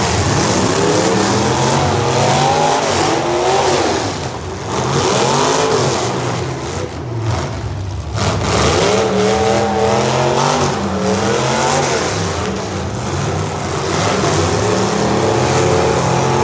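Engines of modified full-size demolition derby cars revving up and down over and over, their pitch rising and falling.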